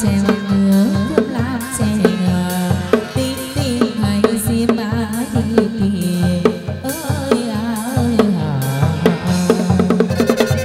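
Vietnamese chầu văn ritual music: a drum and percussion keep a steady beat of about three strokes a second under a wavering melody line.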